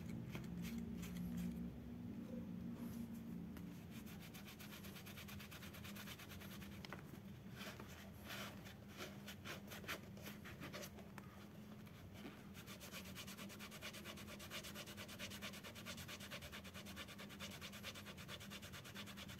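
A cloth is rubbed briskly back and forth over a bicycle saddle, scrubbing off a screen-printed logo with repellent lotion. The rapid, scratchy rubbing strokes get busier from about seven seconds in, over a steady low hum.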